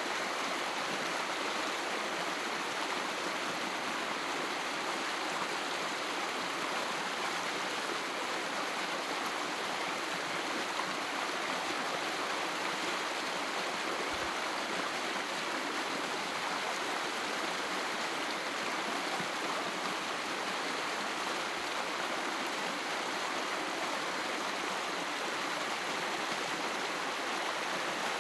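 A small stream rushing and burbling over rocks, a steady, unbroken water noise.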